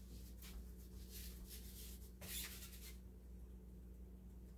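Faint, soft scraping and rustling noises a few times in the first couple of seconds, then quieter, over a low steady electrical hum in a small kitchen.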